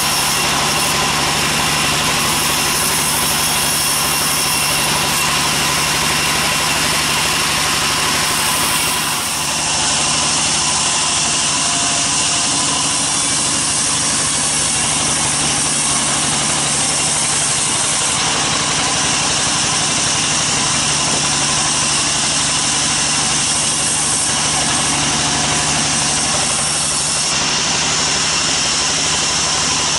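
Large sawmill band saw running steadily while it cuts teak, a loud continuous machine drone with a high hiss over it. The noise dips briefly about nine seconds in.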